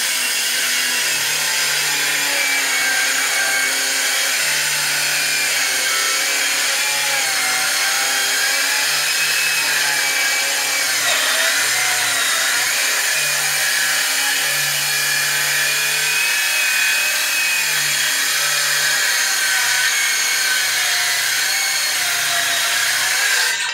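Parkside PHKSA 20-Li cordless circular saw running under load as it cuts through wood at its maximum depth of about 48 mm. Its steady whine wavers slightly through the cut and stops abruptly at the end.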